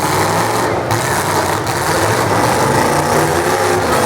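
Full-size demolition derby car engines running and revving.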